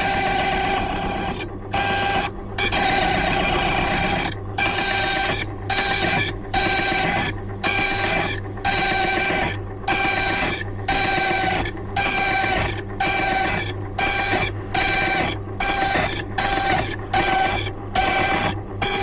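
Silca Lancer key-cutting machine running, its cutter whining steadily as it cuts down a bitted lever-lock key blank in repeated passes, with short breaks about once a second.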